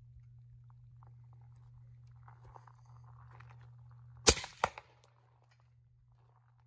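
One suppressed AR-style rifle shot about four seconds in, followed about a third of a second later by a second crack: the bullet striking a steel target at 100 yards. Before the shot, a steady low hum and faint rustling.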